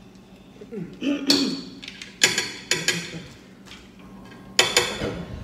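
Forks clinking and scraping against ceramic plates of spaghetti on a glass table, with several sharp, ringing clinks. Short mumbled voice sounds come in between.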